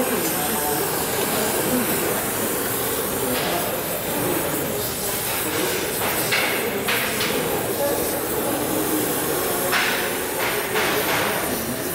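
Oxy-fuel gas welding torch flame hissing steadily while brazing a steel pipe to a copper pipe with brass filler rod.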